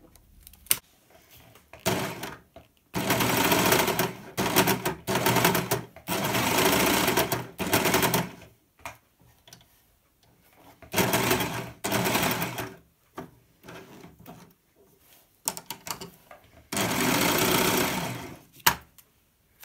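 Brother M343D overlocker (serger) stitching fabric, running in several short bursts of a second or a few seconds each and stopping between them.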